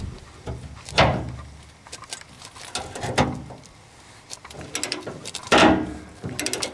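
Half-inch drive ratchet clicking in short runs while working a stiff 15 mm fuel-tank strap bolt loose, with two louder metal scraping strokes, one about a second in and one near the end.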